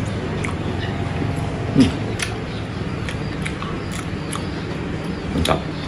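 A person chewing fried beef lung with his mouth: wet chewing and lip-smacking clicks scattered irregularly, one sharper click near the end, over a steady low hum.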